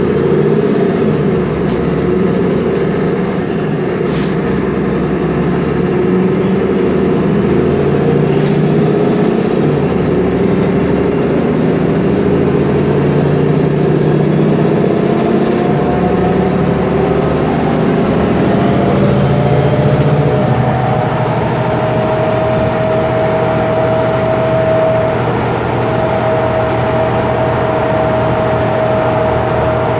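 Mercedes-Benz Conecto G articulated bus under way, its OM457LA straight-six diesel running steadily. A thin whine from the ZF drive axle differential climbs slowly in pitch as the bus gathers speed, then holds steady through the last third.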